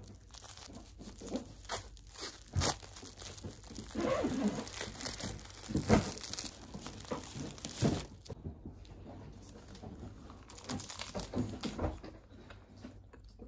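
Plastic film wrapper of a 7-Eleven onigiri being torn open and crinkled as it is pulled away from the nori, with several sharp snaps of the film. Near the end, crisp crunching bites into the dry seaweed.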